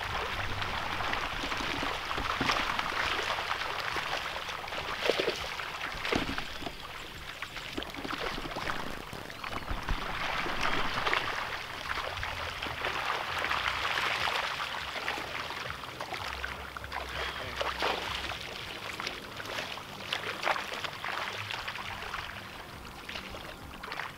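Water splashing and sloshing as people wade through a shallow pond drawing a seine net, swelling and easing unevenly with a few sharper splashes.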